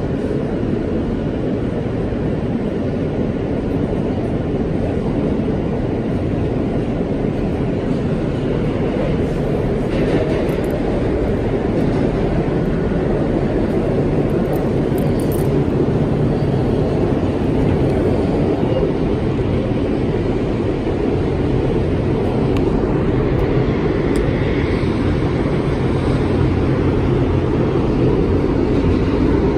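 NYC Subway G train running along the track, heard from inside the car: a steady loud rumble of wheels on rails, growing slightly louder toward the end.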